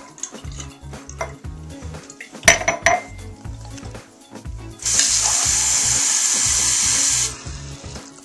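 A loud, steady hiss lasting about two and a half seconds that cuts off suddenly, preceded by a sharp knock, over background music with a repeating bass beat.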